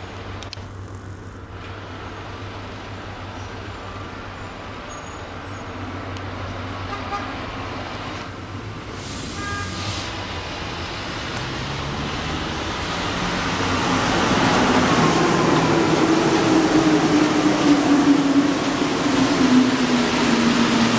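Alstom NS93 rubber-tyred metro train approaching and pulling into a station, growing steadily louder as it nears. In the last seven seconds or so, a whine falls slowly in pitch as the train slows while its cars pass close by, over the hum of road traffic.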